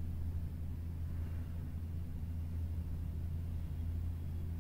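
Steady low hum with a faint hiss above it, unchanging throughout, with no distinct events.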